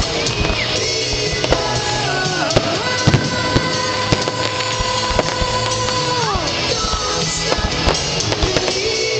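Grucci fireworks display: many sharp bangs and crackles going off irregularly over loud show music, with one long held note that slides down near the middle.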